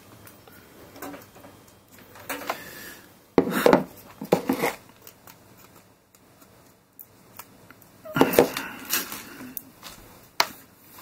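Handling noises close to the microphone: knocks, light clatter and rubbing in several irregular bursts, loudest a few seconds in and again past the middle.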